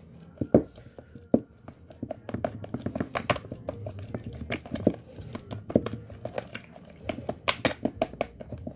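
Fingers breaking up food inside a clear plastic tub, with irregular taps and knocks of fingertips and nails against the plastic.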